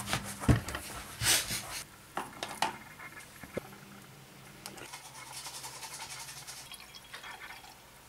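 A quick run of small household handling sounds: several knocks and clicks over the first few seconds, one sharp click, then a soft scratchy rustle lasting about two seconds.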